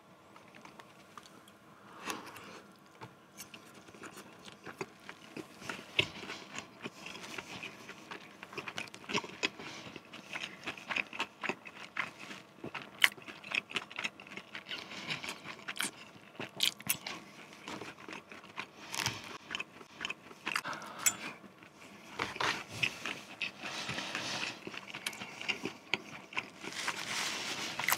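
Close-up eating sounds: chewing and crunching of KFC popcorn chicken and fried Maggi noodles, with a metal fork scraping and tapping in a paper cup, in irregular short clicks and crunches that grow busier toward the end.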